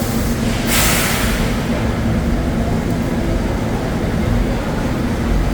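Subway train rumbling with a steady low hum, with a short burst of air hissing about a second in.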